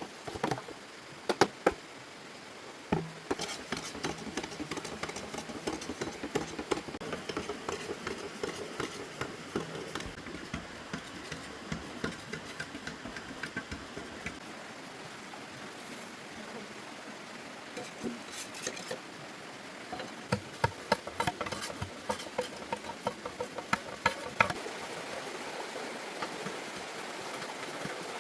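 Irregular clicks and light knocks, dense for about ten seconds, then a cluster of sharper, louder knocks near the end.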